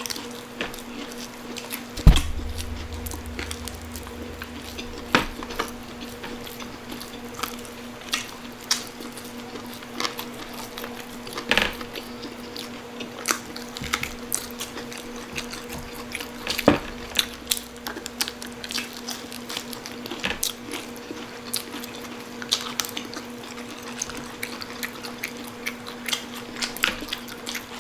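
Close-miked eating of crispy pata: irregular wet chewing, lip smacks and crunchy bites of fried pork skin, over a steady low hum. A loud knock about two seconds in, followed by a brief low rumble.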